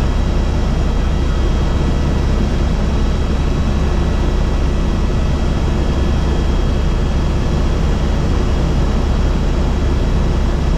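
Helicopter in flight, heard from inside the cabin: a loud, steady drone from the rotor and engine, with a faint, constant high whine over it.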